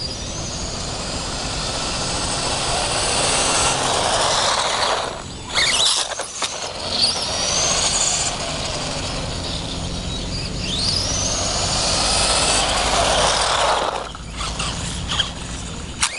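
The Minizilla vehicle driving about, its running noise building and falling away, with a high whine that rises in pitch twice as it speeds up. The noise drops off sharply about five seconds in and again near fourteen seconds.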